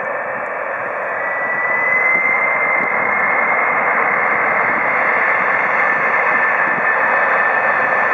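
Jet engine noise from two F-4 Phantom II fighters' J79 turbojets at low power while they line up for takeoff: a steady rush with a high whine that rises slightly, growing louder about a second in.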